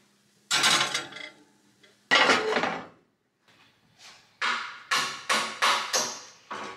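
A metal baking pan scraping and clattering as it is slid out across the oven rack and set down on the stovetop, followed by about six quick scrapes of a knife spreading a topping onto crusty biscuits.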